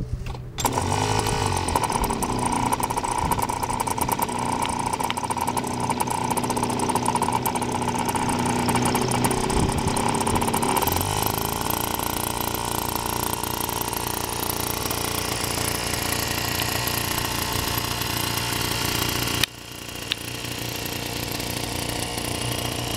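Small engine of a radio-controlled model fishing boat coming on just after the start and running steadily, its pitch shifting about halfway through. Near the end it drops suddenly to a quieter steady run as the boat cruises off.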